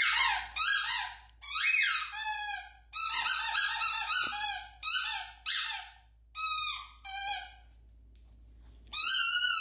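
Rubber squeaky dog ball squeezed over and over: a run of short, shrill squeaks that bend up and down in pitch, a brief pause, then one long wavering squeak near the end.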